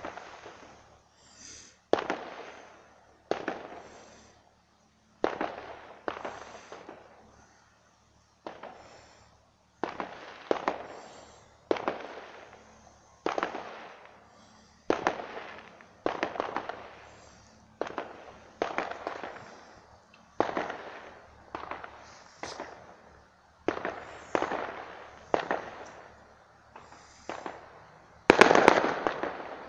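A long run of sharp bangs, one every second or two, each trailing off in a crackle over about a second. The loudest and longest comes near the end.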